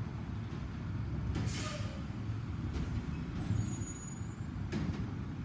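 Distant garbage truck's diesel engine running with a steady low rumble. A short hiss of air from its air brakes comes about one and a half seconds in.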